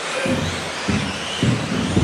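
1/10 scale 2WD off-road RC buggies racing on an indoor astroturf track: a steady hiss of motors and tyres, with low thumps about every half second.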